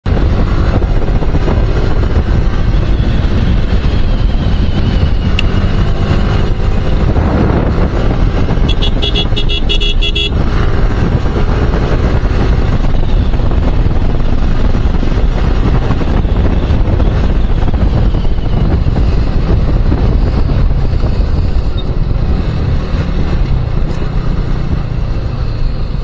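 Yamaha motorcycle riding at road speed: a steady, heavy rumble of wind on the microphone mixed with the engine running. About nine seconds in, a horn gives a rapid series of beeps lasting about a second and a half.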